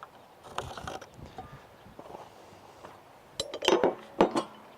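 Hand tools being handled at a wooden post: faint light scraping and handling noise, then a quick run of sharp clicks and knocks about three and a half to four seconds in.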